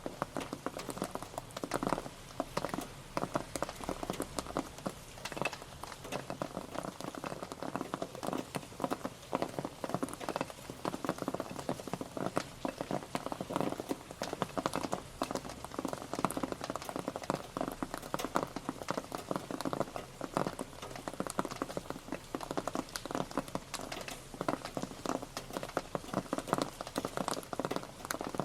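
Rain pattering steadily on a surface: a dense, even run of individual drop taps with no let-up.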